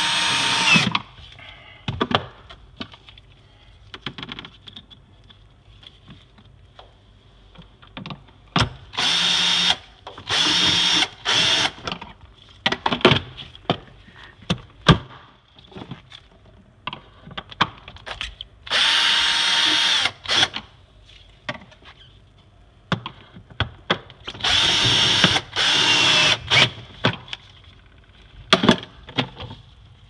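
Cordless drill-driver run in short bursts against a refrigerator's plastic inner back panel, about six runs of a second or two each, with a steady motor whine. Clicks and knocks of handling fall between the runs.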